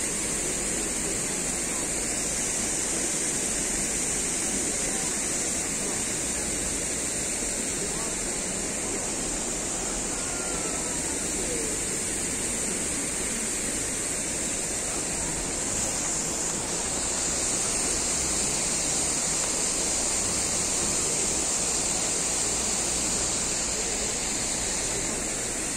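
Steady splashing of a public fountain's water, an even rushing wash with a high hiss that swells slightly about two-thirds of the way through.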